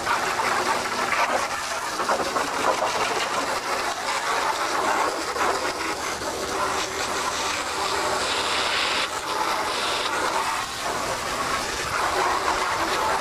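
Garden hose spray nozzle jetting water onto fiberglass motorcycle fairing panels, rinsing off degreaser. It makes a steady hiss of spray and splashing that rises and falls as the jet moves over the panel.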